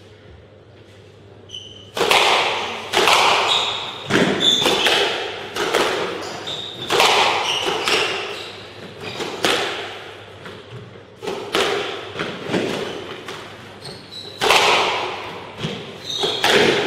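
A squash rally: the rubber ball cracks again and again off rackets and the court walls, each hit echoing in the court, with short high squeaks of shoes on the wooden floor between hits. The hits begin about two seconds in, after a hush, and come roughly one to two a second.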